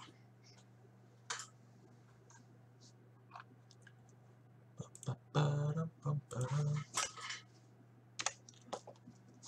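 Scattered clicks and taps of computer keyboard typing over a steady low electrical hum, with a louder stretch of about a second and a half some five seconds in.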